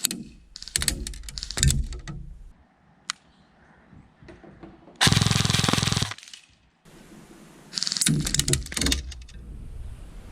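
Krytac Kriss Vector airsoft electric gun (AEG) being test-fired: rapid strings of shots early on, a continuous full-auto burst of about a second about five seconds in, and another rapid volley near the end.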